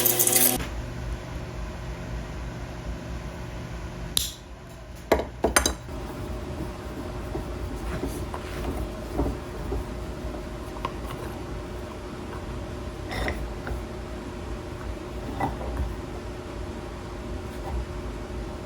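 A workshop machine running with a steady hum. A few sharp clicks or taps come about four to six seconds in, and fainter knocks follow later.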